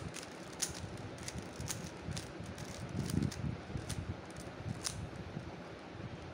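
Plastic 3x3 Rubik's cube being turned quickly by hand, giving irregular sharp clicks and clacks, a dozen or so, over a steady background hiss.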